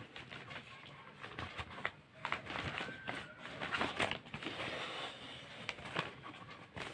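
Folded newspaper rustling and crinkling in the hands as a needle and thread are stitched along its fold, with an irregular run of small crackles and ticks.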